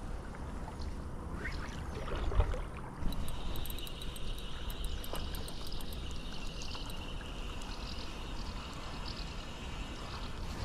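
Water moving around a kayak on a small river, with a louder bump a little over two seconds in. From about three seconds in, insects chirp steadily and high-pitched.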